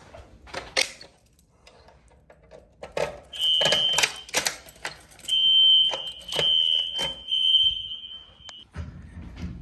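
Fire alarm signal sounding a high, steady electronic tone in bursts: one short burst about three seconds in, then a longer run of about three seconds that stops shortly before the end. Sharp clicks and knocks come through before and during the tone.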